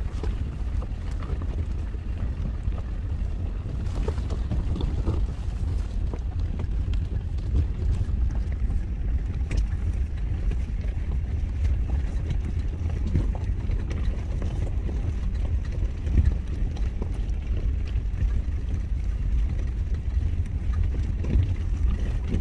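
Car driving slowly over a gravel riverbed, heard inside the cabin: a steady low rumble from engine and tyres, with a few small knocks from the stones.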